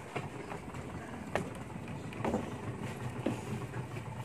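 Several sharp knocks and bumps of people and gear moving about in a small boat, over a low steady hum.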